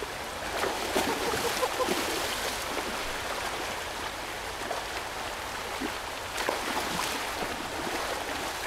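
Steady rushing of a river's flowing current.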